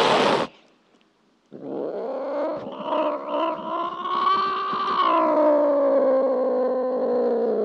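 Cat sounds: a short harsh noisy burst at the start, then after a pause a long drawn-out yowl of about six seconds, its pitch rising and then slowly falling, cut off abruptly at the end.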